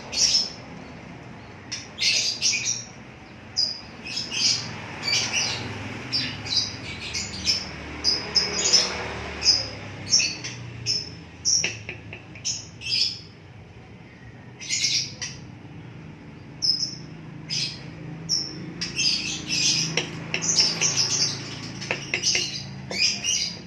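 Small cage birds chirping: short, high calls, one every second or so, at times in quick clusters.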